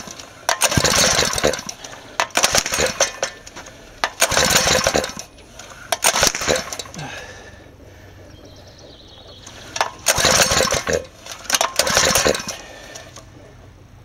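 Small four-stroke engine fed with oxyhydrogen (HHO) being pull-started again and again: about six rope pulls of about a second each, with a longer pause in the middle, the engine cranking roughly without settling into running. The owner blames its reluctance on ignition timing not yet advanced for hydrogen.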